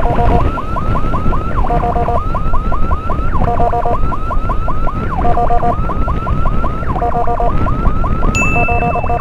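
Electronic emergency siren on an escort motorcycle, repeating a pattern about every 1.8 seconds: a quick run of rising chirps, a fast two-tone warble, then a falling sweep, over engine and wind noise. A steady high beep starts near the end.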